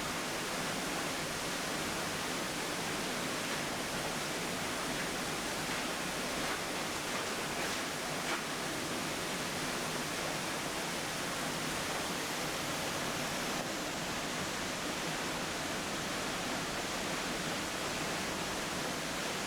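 Minnehaha Falls' water falling, a steady, even rush of noise.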